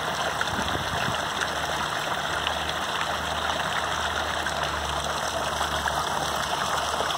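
Steady rushing of running water in a hot-spring pool, close to the microphone, with a steady low hum beneath it.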